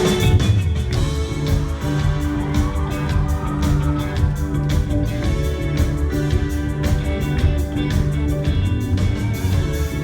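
Live rock band playing with electric guitar, bass and drums, a steady beat throughout; the sound changes abruptly right at the start.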